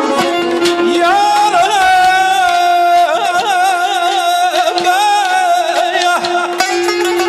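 Azerbaijani folk ensemble playing, with tar, accordion and frame drums: an ornamented, wavering melody line is held over a steady drone note.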